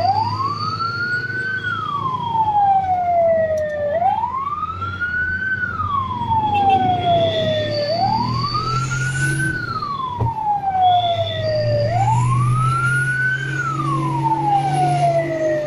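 Fire engine siren wailing in a slow repeating cycle: the tone rises for about a second and a half, then falls for about two and a half, four times over, with a steady low engine hum beneath.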